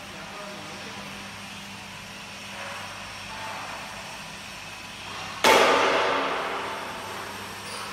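Steady workshop background noise, broken about five and a half seconds in by one sudden loud bang that rings out and fades over about a second and a half.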